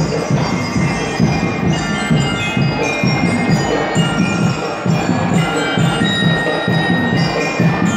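Drum and lyre band playing: metal bell lyres ring out a melody over a steady drum beat.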